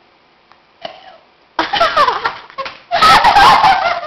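Two loud bursts of non-speech vocal sounds from young people, their pitch sliding up and down, starting about one and a half seconds in and again about three seconds in.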